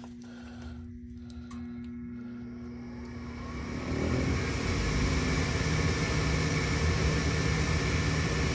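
Furnace's newly installed induced draft motor starting up and running as a steady whir with a low hum. It grows louder about four seconds in as it comes up to speed, spinning freely and quietly. Before that there is a faint steady hum and a single click.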